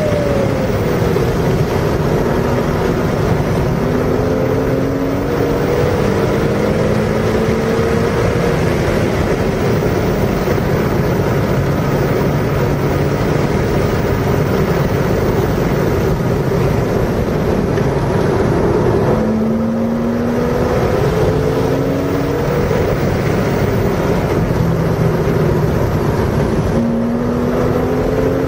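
Car engine under hard acceleration, its pitch climbing and then dropping back at gear changes a little past two-thirds through and again near the end, over heavy wind and road noise.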